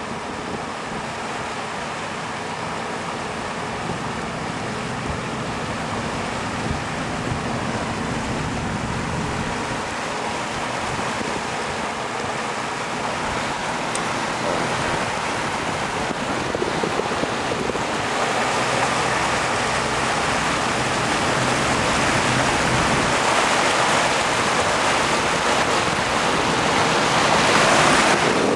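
Wind rushing over the microphone of a camera carried by a parasail rider, with a motorboat's engine and the churn of its wake underneath. It grows steadily louder toward the end as the rider comes down close to the water.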